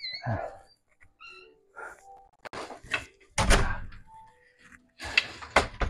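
Wooden interior door being shut, with a loud knock about three and a half seconds in, and another cluster of clicks and knocks near the end.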